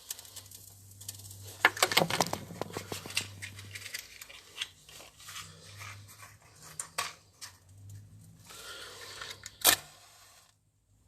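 Paper being crumpled and torn: irregular rustles and crackles, densest about two seconds in, with one sharp snap near the end.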